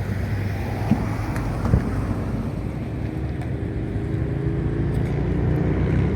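A steady low engine-like hum with wind noise, and two short dull thumps about one and nearly two seconds in.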